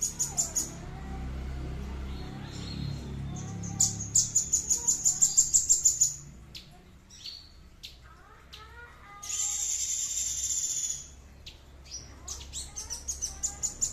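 A songbird singing in fast series of sharp, high repeated notes, about six a second, with a harsh, buzzy rasp lasting about two seconds partway through.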